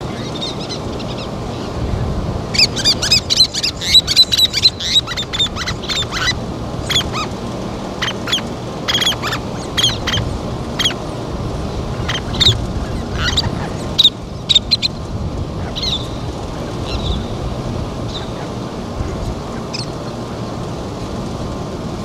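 Least terns calling: a rapid run of short, high chirps from about two to six seconds in, then scattered calls that thin out after about fifteen seconds, over steady background noise.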